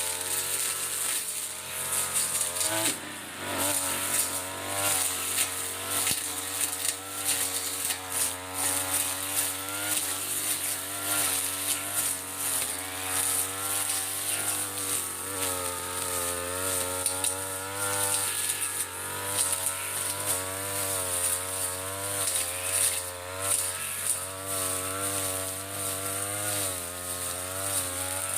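Mitsubishi TU33 two-stroke brush cutter running at working speed, its engine note rising and falling as it cuts through ferns and grass.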